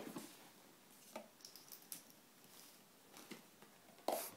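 Light plastic clicks and knocks of an African grey parrot handling a plastic ring-stacking toy, with a louder plastic clatter near the end as its beak moves the green ring on the cone.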